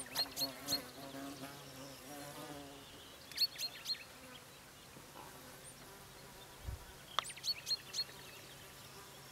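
Red-backed shrike giving short, harsh calls in three quick runs of three to five, a few seconds apart. An insect buzzes past in the first few seconds.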